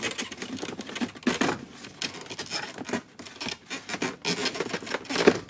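Plastic lower dash cover being worked loose by hand: irregular scraping and rubbing of plastic trim with scattered clicks, and a louder knock near the end.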